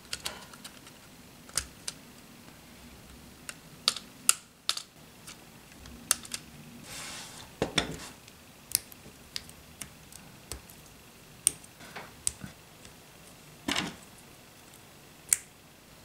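Lego Technic pieces clicking irregularly as they are handled and pressed together by hand, pins snapping into beams and connectors, with a short rustle of loose parts around seven seconds in.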